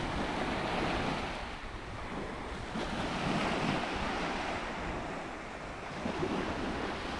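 Small Gulf of Mexico waves washing onto the beach, swelling and easing every few seconds, with wind rumbling on the microphone.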